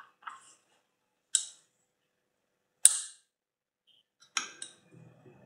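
Metal tools clicking against a bicycle's bottom bracket: two sharp, bright clicks about a second and a half apart, each with a brief ring, then a short cluster of lighter clicks near the end.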